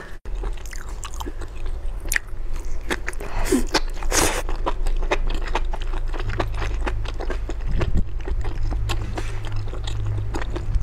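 Close-miked biting and chewing of grilled meat rolls wrapped around enoki mushrooms: many short wet clicks, smacks and crunches, over a low steady hum.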